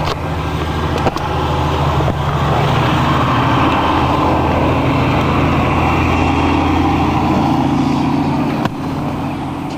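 A motor vehicle engine running with a steady low hum. A rush of noise swells from about two and a half seconds in and falls away near the end.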